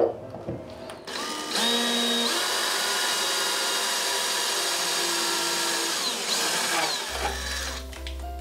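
Power drill with a tile drill bit boring a screw hole through a wall tile. The motor starts about a second in, runs with a steady whine for about five seconds, then winds down and stops.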